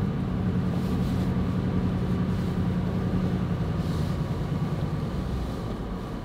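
A truck's engine and road noise heard from inside the cab while driving slowly, a steady low hum that eases off near the end.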